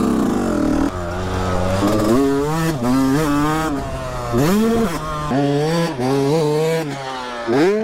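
Yamaha YZ250F four-stroke single-cylinder dirt bike engine revving hard, its pitch climbing and dropping several times as the throttle is opened and rolled off. There is a brief throttle chop and sharp re-rev about four and a half seconds in.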